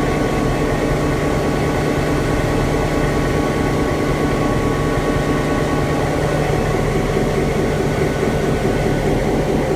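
EMD 16-cylinder 567-C two-stroke diesel engine of an ex-CFL locomotive running steadily, with an even, unchanging drone.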